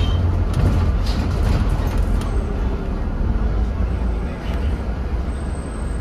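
Scania N230UD double-decker bus heard from inside the cabin: a steady low diesel rumble with road noise, easing off slightly as the bus slows for a stop. A thin high squeal sounds near the end.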